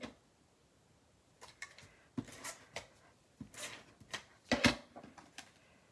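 Paper being handled on a craft table: a few short rustles and light knocks, with the loudest knock about four and a half seconds in.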